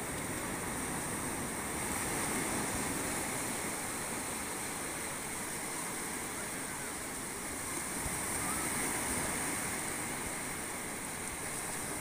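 Small sea waves breaking and washing up over a rocky shore: a steady surf hiss that swells louder twice as the wash comes in.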